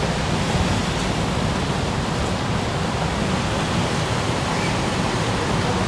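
Steady, even rushing ambience of an open-air train station platform while waiting with no train present, without distinct clicks, voices or announcements.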